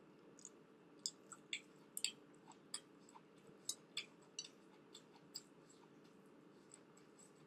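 Close-miked chewing of crisp stir-fried broccoli: a quick run of faint wet crunchy clicks over a few seconds that then fade out.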